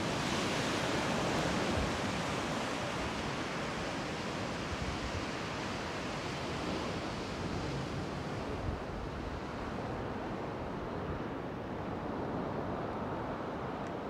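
Steady rush of surf breaking against chalk sea cliffs below, mixed with wind. The high hiss thins out about halfway through.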